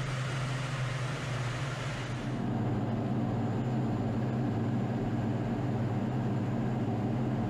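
Jet aircraft in flight: a steady drone of engine and rushing air with a strong low hum. About two seconds in, the high hiss falls away and a lower, humming drone carries on.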